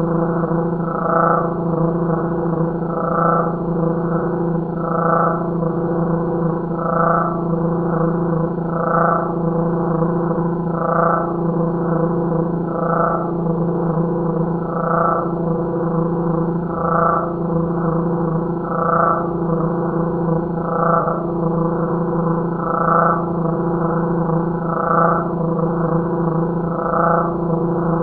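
Crickets chirping, heavily slowed down so their song becomes a low, steady hum. Each slowed chirp swells in about every two seconds.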